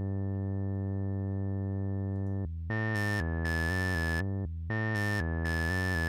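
Arturia ARP 2600 software synthesizer played by its 1601 step sequencer, with the sequencer also modulating the filter cutoff. A single held buzzy note sounds for about two and a half seconds. Then comes a short phrase of stepping notes that repeats about every two seconds, its tone turning bright and then dull again from step to step as the filter opens and closes.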